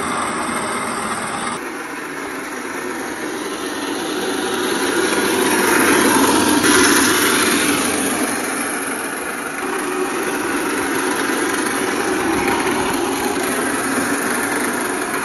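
1/10-scale RC crawler driving, its electric motor and gear drivetrain running, with the sound swelling to its loudest about six to seven seconds in.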